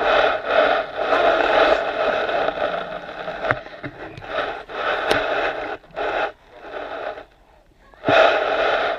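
A baby's hand rubbing and scraping on the GoPro camera housing right at the microphone, a rough rustling in runs of a second or two, with a couple of sharp taps about three and a half and five seconds in.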